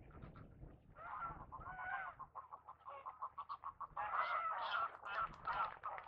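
A flock of geese honking, with many short calls overlapping in a continuous chorus.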